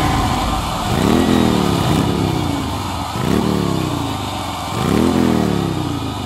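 Custom chopper motorcycle's V-twin engine revved three times. Each rev is a quick rise in pitch followed by a slower fall, and the sound fades toward the end.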